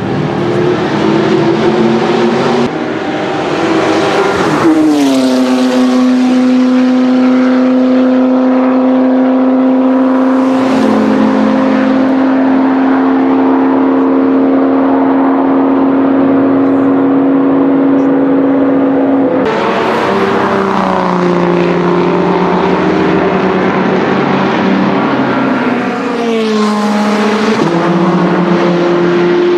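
Aston Martin V12 Zagato V12 engines running on a race circuit. About five seconds in the pitch falls as a car passes, then a steady engine note holds for about fifteen seconds, and the note shifts and falls again with another pass near the end.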